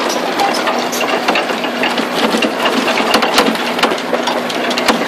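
Small vehicle engine running steadily, a low hum under a dense rattle of clicks and knocks as the vehicle jolts along a rough dirt track.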